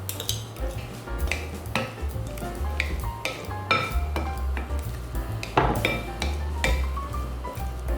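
Irregular clinks and scrapes of a utensil against a bowl as food is stirred and mixed, several a second, over background music with a steady bass.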